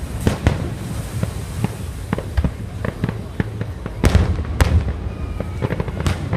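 Fireworks going off: a steady run of bangs and crackles over a low rumble, with the biggest explosions about 4 and 4.5 seconds in and again near the end.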